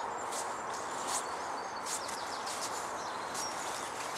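Small birds chirping over a steady outdoor hiss, with soft footsteps on a grassy path at an easy walking pace, about one step every 0.7 s.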